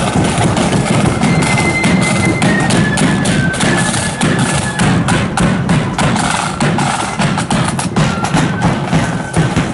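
Marching flute band playing a tune: a high flute melody over rapid snare drum strokes and a bass drum.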